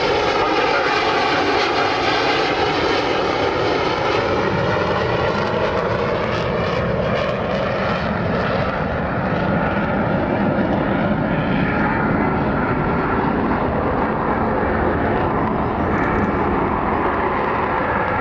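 Avro Vulcan XH558's four Rolls-Royce Olympus turbojets running loud as the delta-wing bomber flies a display pass, with sweeping, shifting tones through the jet noise. The highest sounds fade about halfway through as the aircraft draws away.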